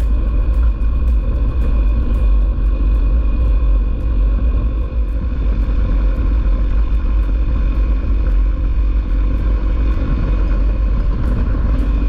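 Honda CRF250L's single-cylinder engine running at a steady cruise on a dirt road, buried under heavy wind rumble on the bike-mounted camera's microphone, with scattered small ticks.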